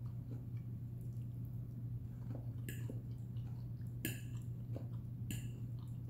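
Close-up wet chewing of a mouthful of Brussels sprout, with three sharp clinks of a metal fork against the plate, over a steady low hum.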